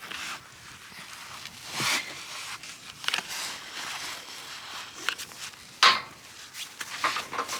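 Footsteps scuffing and scraping on frozen natural ice, a handful of short, uneven scrapes a few seconds apart.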